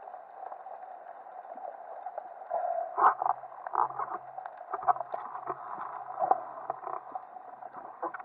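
Muffled underwater water noise heard through a waterproof camera housing, with irregular clicks and knocks starting about three seconds in.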